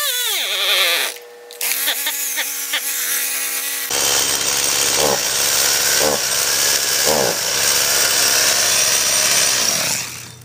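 Stihl MS170 two-stroke chainsaw engine running loud and uneven, its revs rising and falling, then cutting out near the end. The saw has a fuel-delivery problem that the owner puts down to a blockage in the carburetor.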